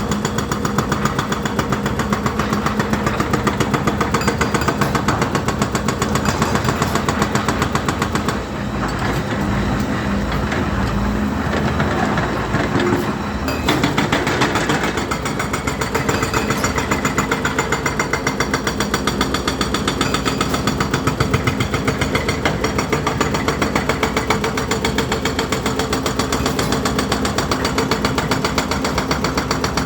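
Volvo EC210D excavator working: the diesel engine runs steadily under a rapid, even knocking. The knocking eases for a few seconds about a third of the way in, then picks up again.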